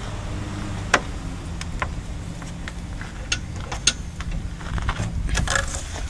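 Scattered light clicks and rattles from the plastic milk crates and bungee-cord hooks on a cargo bike being handled, over a steady low rumble. The sharpest click comes about a second in, and a quick run of rattles comes near the end.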